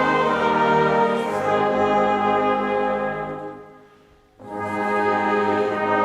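Slow instrumental music of long held chords with a brass-like tone. The chord fades away about three and a half seconds in and a new chord begins a moment later.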